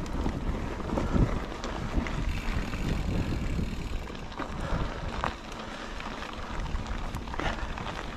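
Mountain bike riding along a dirt singletrack: tyre noise on the dirt with wind buffeting the microphone, and a few short clicks and rattles from the bike over bumps.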